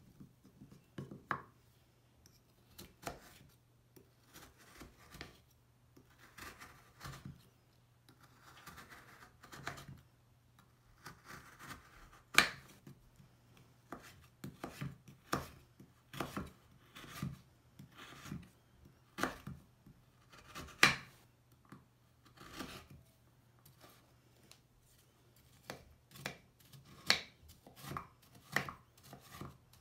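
A kitchen knife chopping through a crumbly Lush bubble bar on a wooden cutting board: grainy crunching as the blade presses through the bar, and sharp knocks when it meets the board, irregularly about every second or two.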